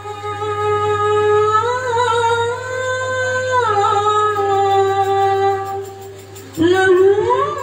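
A woman's voice singing a hadroh devotional vocal line through a microphone and loudspeaker, in long held notes that step up in pitch and back down. Near the end a new phrase starts with an upward glide.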